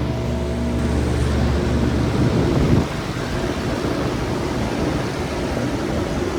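2016 Lasko Power Plus heat pump running in cool mode on its first cool-mode startup, compressor and fan going: a steady low hum that turns into a rougher, noisier rumble about two seconds in, with a brief loud surge near three seconds. The compressor doesn't sound the best, which the owner puts down to its first time in cool mode.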